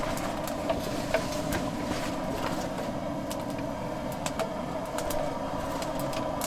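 A handheld gas torch hissing steadily into a wood stove to light the kindling, with sharp crackles from the wood as it catches.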